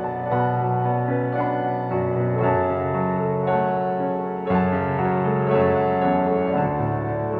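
Background piano music, with notes struck roughly once a second and left to ring.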